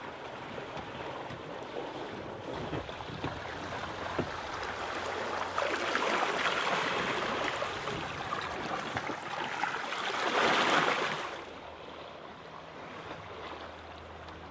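Sea water rushing and splashing along the hull of a sailing yacht under way. It swells louder through the middle, is loudest about ten seconds in, and then falls back to a steadier wash.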